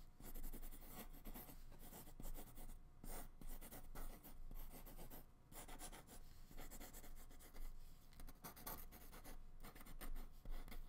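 A soft graphite drawing pencil scratching across dry acrylic-painted paper in sketching strokes as leaf outlines are drawn, with a few short pauses between strokes.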